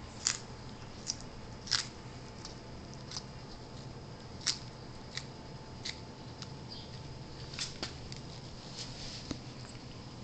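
A land tortoise biting and tearing lettuce leaves: a dozen or so short, crisp crunching snips at irregular intervals.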